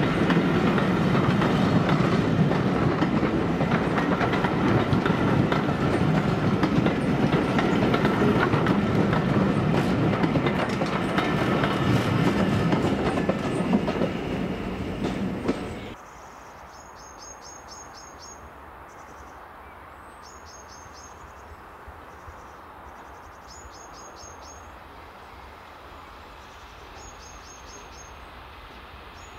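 Railway coaches rolling past close by, their wheels clicking over the rail joints, the sound fading as the last coach goes. About halfway through it cuts to a much quieter scene with a low background and a small bird singing short, rapid, high trills several times.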